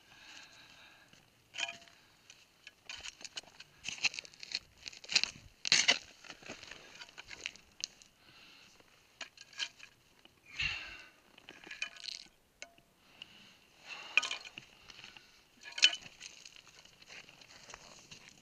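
Irregular scraping, clinking and rustling of a climber downclimbing rock: gloved hands, boots and an ice axe knocking and scraping against rock and loose scree, with jacket rustle. Sharp clinks stand out about five to six seconds in and again near the end.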